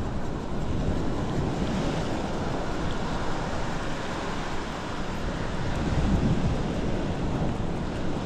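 Sea waves washing and wind buffeting the microphone, a steady rush with gusty low rumbles.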